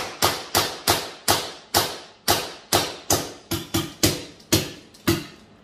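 CO2-powered FSC less-lethal carbine firing a rapid string of about fifteen sharp shots, roughly three a second, run off to see how many shots are left in its CO2.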